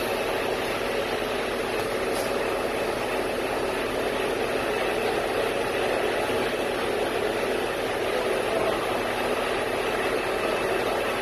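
Cement mixer truck running steadily while it discharges concrete down its chute: a continuous engine and drum noise with no breaks.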